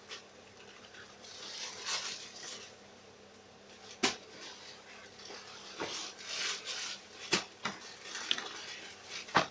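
Denim jeans being handled and flipped over on a table: the fabric rustles in a few stretches, with several sharp clicks in between, the loudest about four seconds in and just before the end.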